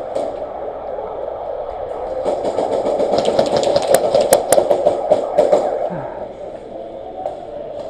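Airsoft gunfire: a steady whirring noise with a scatter of sharp, fast clicks through the middle.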